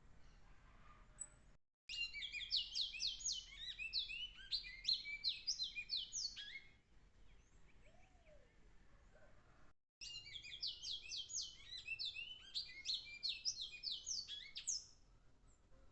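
Great-billed seed finch (bicudo) singing: two phrases of rapid, high sliding notes, each about five seconds long, with a pause of a few seconds between them.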